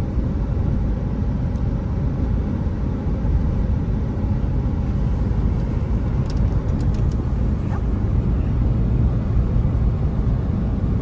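Steady rumble of a moving car heard from inside the cabin: engine and tyre noise, with a few brief clicks a little past halfway.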